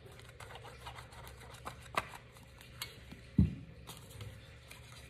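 Quiet handling of paper and a squeeze bottle of liquid glue: light taps and small paper sounds, with one dull thump on the table about three and a half seconds in.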